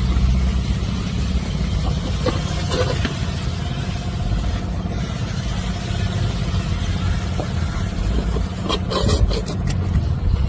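A vehicle engine running with a steady low rumble, with a few sharp knocks about nine seconds in.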